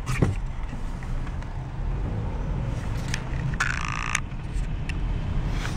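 Steady low rumble of road and engine noise inside a moving car in the rain, with a few faint clicks and a short rasping sound about three and a half seconds in.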